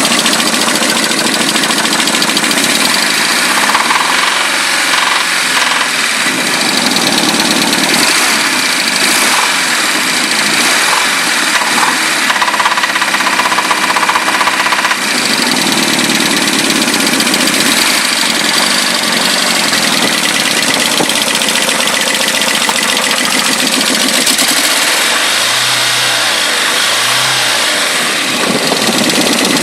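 Nissan SR20DET turbocharged inline-four engine running with a knock, its speed rising and falling briefly a couple of times. The owner guesses the knock comes from the bottom end and suspects a rod knock; it disappears when the cylinder-one plug is pulled.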